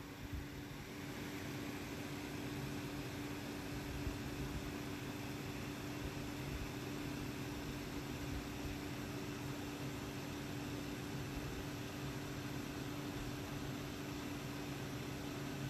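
Steady mechanical hum with a few fixed low tones over an even hiss, the unchanging noise of a machine such as a fan running in the room.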